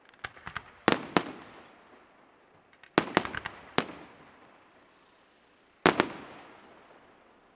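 Aerial firework shells bursting in groups of sharp bangs, each trailing off in a long echo: small pops and two loud bangs about a second in, a quick cluster around three seconds, and the loudest single bang near six seconds.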